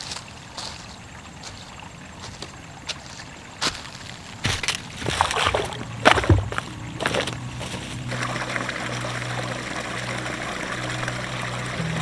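Small forest brook trickling over stones, with a few faint ticks early on. About halfway through, boots step across the wet stones and dead leaves in a burst of loud crunches and scuffs, after which the trickling grows fuller.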